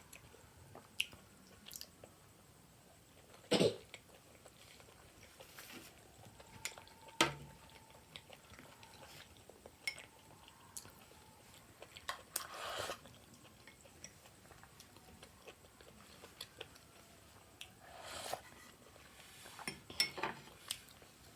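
Close-up eating sounds: chewing of pork momos, with a few sharp clinks of utensils against dishes, the loudest about three and a half seconds in and another about seven seconds in.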